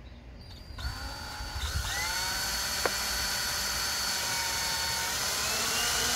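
DeWalt cordless drill-driver with a Phillips bit driving a screw into the bottom of a metal electrical box on a wall. The motor whine starts about a second in and runs steady, its pitch dipping and shifting a little, with one sharp click near the middle.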